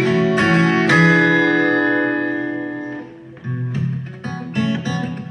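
Acoustic guitar strumming chords in a song's instrumental break. About a second in, one chord is left to ring and fade. After a brief lull, the rhythmic strumming picks up again.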